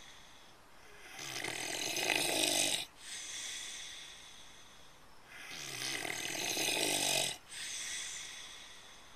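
Pig snoring: two long snores about four seconds apart, each growing louder and then stopping abruptly, with softer breathing sounds between.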